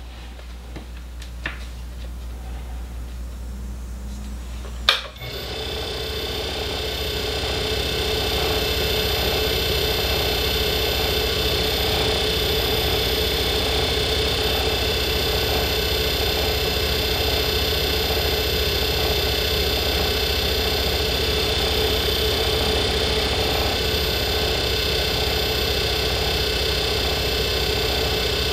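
A small lathe is switched on with a click about five seconds in. Its motor comes up to speed over the next few seconds, then runs steadily with a hum and a higher whine, spinning a nickel silver ferrule slide in its chuck.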